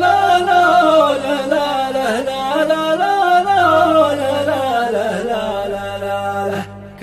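A solo male voice chanting an Arabic poem, drawing out a long wordless melismatic phrase that rises and falls over a steady low hum, breaking off about 6.7 seconds in.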